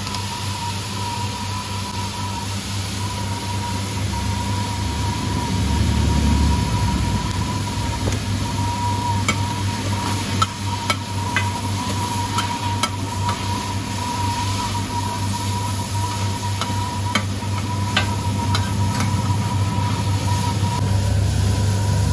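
Pad thai noodles and egg sizzling on a large flat frying pan while metal spatulas stir and toss them, with sharp clicks of the spatulas against the pan through the middle stretch. A steady low rumble runs underneath.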